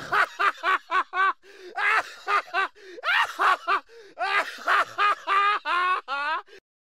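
Men wailing in grief: short, high, sob-like cries, several a second in bursts with brief pauses, cutting off just before the end.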